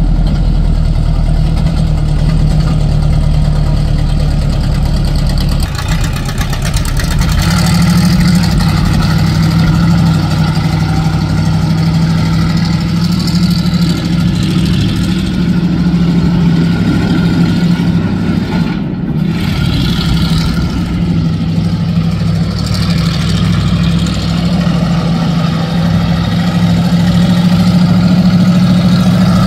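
Car engine running steadily at low speed, its low hum changing in character about six seconds in.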